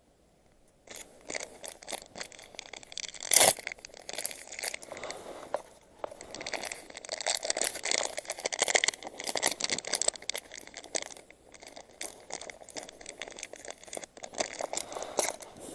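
Close rustling, crinkling and clicking of fishing tackle being handled: plastic packets and boxes of soft baits and jig heads. There is one sharp knock about three and a half seconds in.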